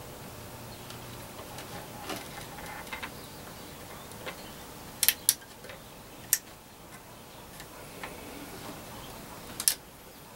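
Scattered sharp clicks and small pops while a stranded wire end is tinned with a soldering gun; the loudest are a pair about five seconds in, another a second later, and one near the end.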